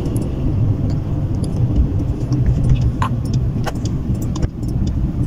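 Road noise inside a moving car's cabin: a steady low rumble of engine and tyres, with scattered light clicks and ticks.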